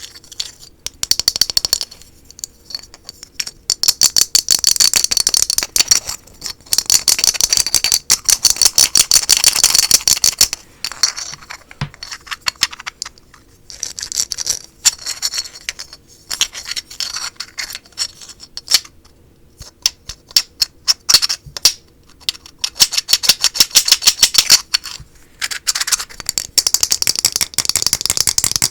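Very fast tapping and scratching on small hard objects, in quick runs of dense crisp clicks with short pauses between them.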